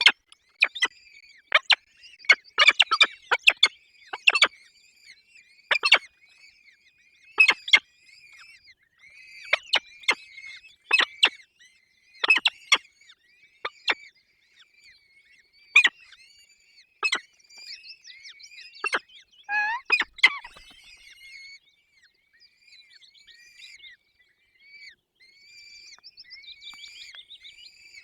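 Peregrine falcon nestlings begging: a continuous chorus of high, thin, repeated cheeps during a feeding. Through the first two-thirds, loud, sharp clicks and knocks break in again and again, and then only the cheeping goes on.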